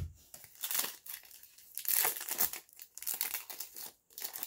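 Foil wrapper of a Bowman baseball card pack crinkling and being torn open, in several rustling bursts, the loudest about two seconds in.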